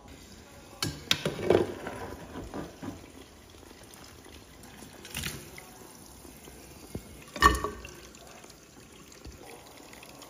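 Tap water pouring into a metal pot of chopped duck carcass pieces as they are rinsed, with a few sudden knocks, the loudest about a second in and again about two thirds of the way through.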